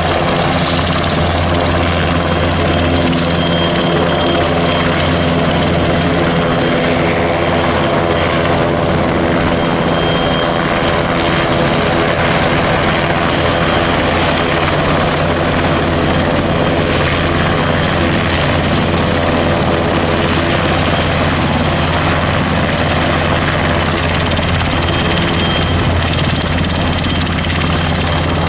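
NH90 helicopter's twin turboshaft engines and main rotor running on the ground as it taxis: a steady, loud drone with a rush over it and a faint high whine that comes and goes.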